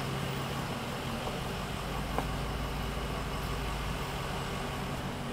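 A vehicle engine idling steadily: an even low hum with a faint hiss over it.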